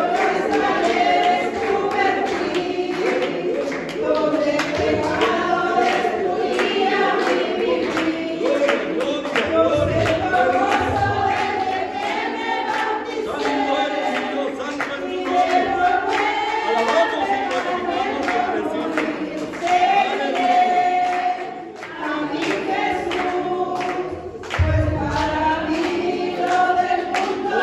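Church congregation singing a hymn together, many voices at once.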